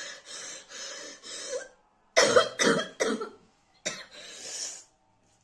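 A woman panting in several heavy breaths, then coughing hard three times in quick succession and once more, her mouth and throat burning from the Jolo chip's extreme chilli heat.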